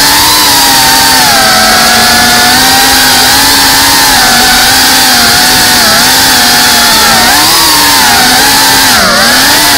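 Brushless motors and propellers of a Geprc Cinelog 35 ducted 3.5-inch cinewhoop FPV drone whining loudly, heard from its onboard camera. The pitch rises and falls with the throttle, with a quick dip about nine seconds in.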